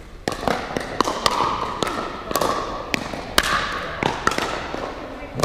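Pickleball paddles striking the hard plastic ball during a rally: a string of sharp pops, roughly two a second at uneven spacing, each with a short echo from the large hall.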